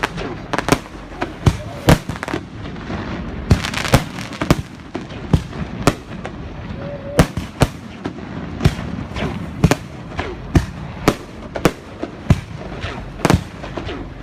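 Fireworks display going off: a steady series of sharp bangs, one or two a second, over a continuous rumble from the bursts.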